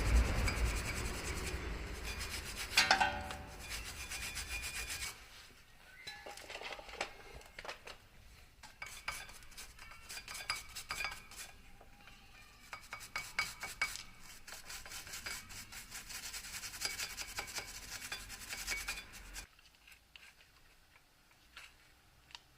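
Rapid rubbing and scraping strokes on metal brake parts, with a sharp metallic clink about three seconds in; the scraping stops abruptly near the end.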